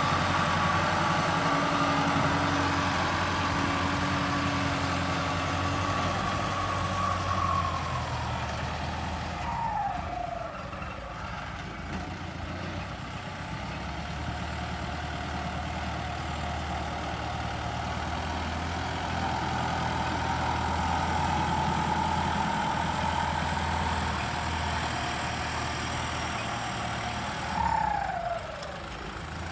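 Kubota turbo-diesel tractor engine running steadily under load while pushing sand with a front blade. A high whine falls away twice, about ten seconds in and near the end, as the engine drops back.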